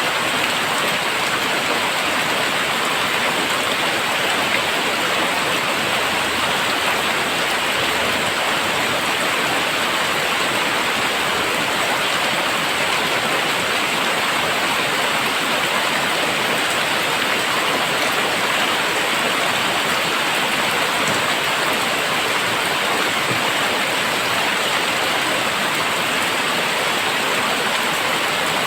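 Heavy, steady downpour of rain: a dense, even hiss of rain falling and splashing on surfaces, with no breaks or single drops standing out.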